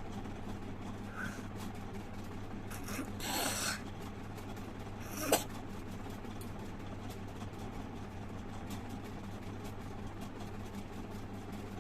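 A woman spitting into a plastic cup: a rasping spit of under a second about three seconds in, then a short sharp one about two seconds later, over a steady low hum.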